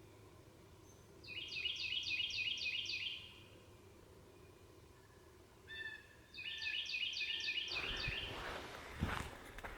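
A songbird singing a quick run of repeated high notes, twice, a few seconds apart. Near the end a rustle and a sharp thump.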